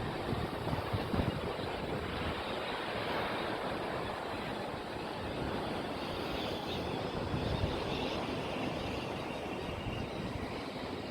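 Sea waves washing against the shore with wind blowing across the microphone, a steady noise throughout.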